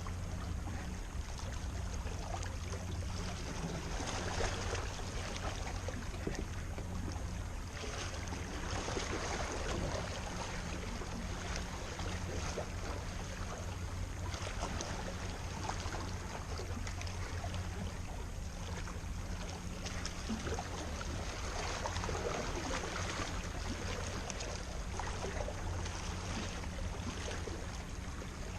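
A boat's motor runs steadily with a low hum, while water rushes and splashes along the hull.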